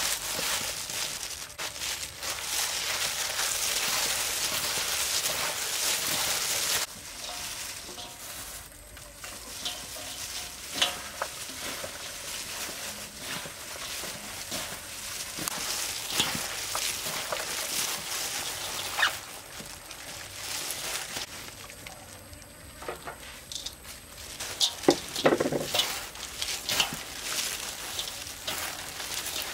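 Gloved hands tossing and squeezing a wet banana-blossom salad in a stainless steel bowl: a steady crackling, squelching rustle with the plastic gloves crinkling, louder for the first seven seconds and softer after. Near the end, crushed peanuts are poured onto the salad with a short patter of small knocks.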